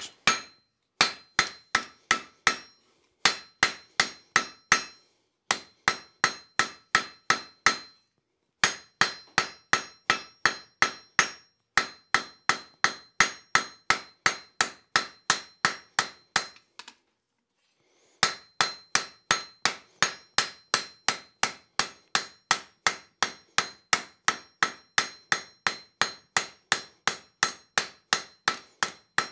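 Hand hammer striking red-hot steel on the face of an anvil, about three ringing blows a second in steady runs with a few short breaks: forging, drawing out the reins of a pair of tongs.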